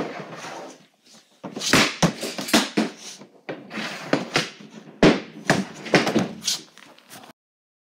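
Bauer Nexus Geo hockey stick taking shots off a shooting floor: the blade scrapes across the surface and slaps the puck with sharp clacks, several in a row, the loudest about five seconds in. The sound cuts off suddenly near the end.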